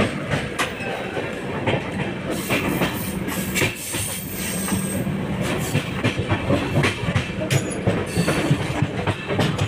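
Running noise of a moving Indian Railways AC 3-tier economy coach, heard inside near the door: a steady rumble and hum with many sharp, irregular clicks and knocks from the wheels crossing rail joints.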